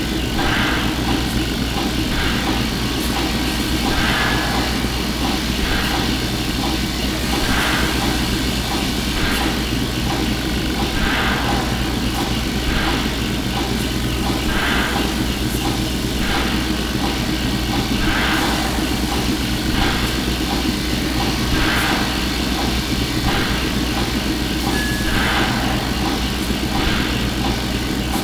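Sci-fi space station repair bay ambience, heard close: a steady low machinery hum with a soft hissing pulse repeating about every two seconds. A short high tone sounds twice, once near the start and once near the end.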